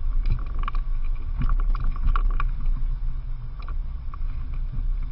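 Inflatable boat under way: a steady low rumble of its motor and of wind and water on the on-board camera, with a scatter of short knocks.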